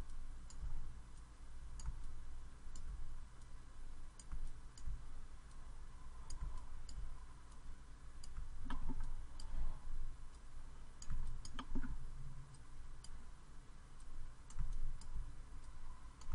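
Computer mouse clicking at irregular intervals while vertices are clicked and dragged, over a low steady hum.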